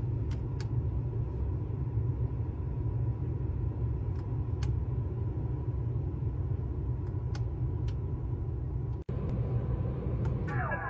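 Sharp clicks of a 2021 Mini Cooper SE's centre-console toggle switches, pressed and released in pairs every few seconds, over a steady low cabin rumble. Near the end, as the start/stop toggle is pressed, an electronic tone begins with falling glides.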